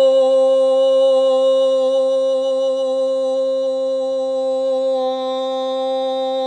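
A woman chanting a long Om, held on one steady note. It is the first of three Oms, for physical healing.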